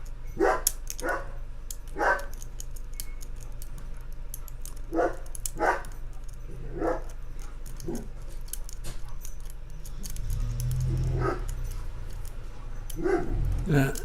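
A dog barking in single barks at irregular gaps, about nine in all, over faint metallic ticking of lock picks in a padlock.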